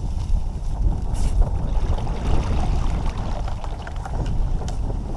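Wind rumbling on the microphone, with a few light knocks and rustles as a pedal-driven kayak backs out of marsh reeds in reverse.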